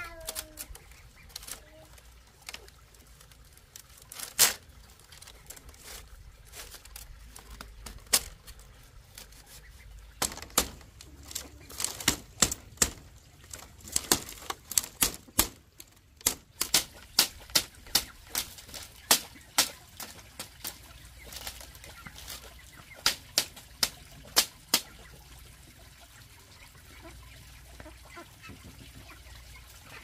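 Machete chopping split-bamboo strips: a couple of single sharp chops early on, then a run of quick, hard strikes about one or two a second through the middle, stopping a few seconds before the end.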